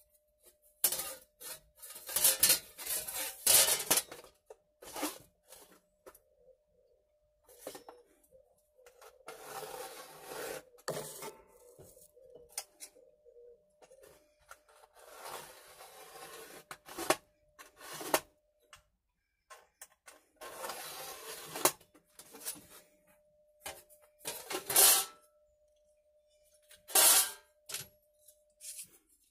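Scratching strokes of a screw point scribing fold lines on thin 1 mm aluminium sheet along a combination square, several strokes of one to two seconds each, with clicks and clatter of the sheet and square being handled between them.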